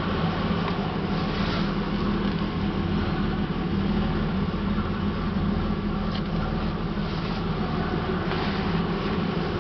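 1987 Buick Regal Grand National's turbocharged 3.8-litre V6 idling steadily, heard from inside the cabin.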